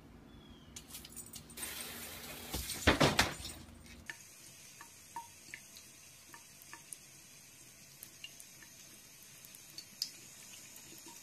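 A short, loud burst of noise about three seconds in. After that, a thin stream of water runs steadily from a bathroom tap into a sink, with a few faint small ticks.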